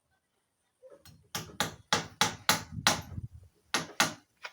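Hammer blows on timber, about three strikes a second, a pause, then two more: carpenters nailing staircase formwork.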